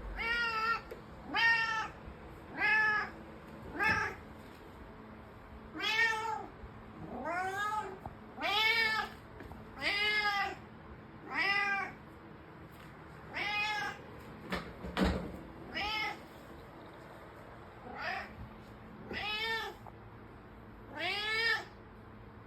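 A domestic cat meowing over and over, one arched call every second or two with a few short pauses: insistent early-morning meowing to wake its owner. One sharp knock sounds about two-thirds of the way in.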